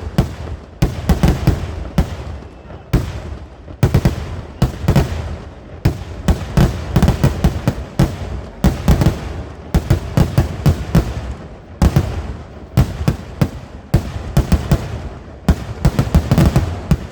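A continuous barrage of fireworks going off: loud, sharp bangs in rapid, irregular clusters, often several a second, with a low rumble carrying between them.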